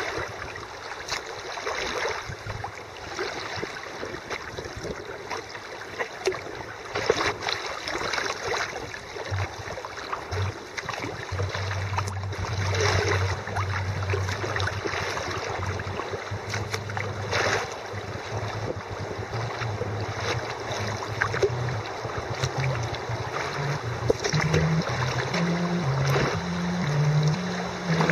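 Kayak paddle strokes splashing in flowing floodwater, with water rushing and irregular splashes every few seconds. A low steady hum runs underneath and moves up and down in steps near the end.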